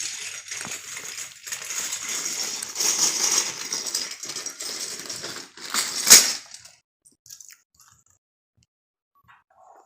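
Loose plastic Lego pieces rattling and clattering as hands rummage through a pile of bricks, with one sharp, louder clack about six seconds in. The clatter stops about seven seconds in.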